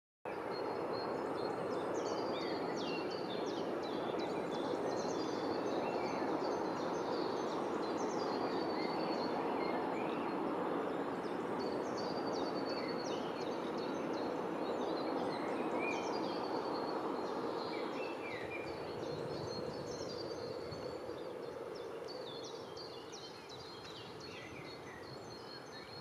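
Many small birds chirping and twittering over a steady background noise, which eases off in the last several seconds.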